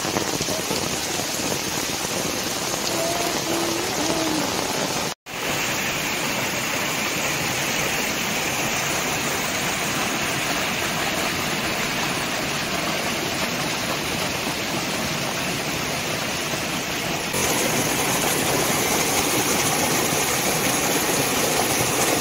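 Heavy rain with muddy stormwater runoff rushing and splashing down a slope in a steady torrent. There is a short break about five seconds in, and the rush is a little louder near the end.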